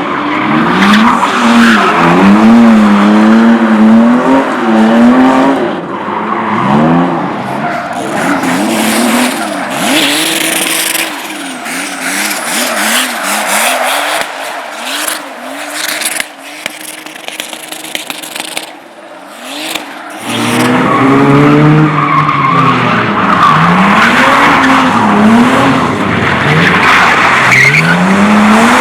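Race car engines revving hard and dropping off over and over as the cars are driven through tight turns, with tyres squealing. The sound falls away and quietens for several seconds around the middle, then a car comes back loud and close about two-thirds of the way through.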